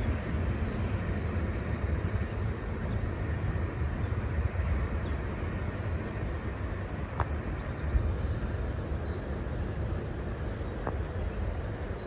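Freight train moving away across a steel trestle bridge: a steady low rumble of its wheels on the rails, with a couple of faint clicks.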